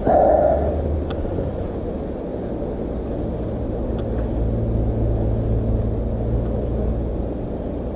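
A steady low rumble with a low hum that grows stronger through the middle, after a brief louder burst at the very start.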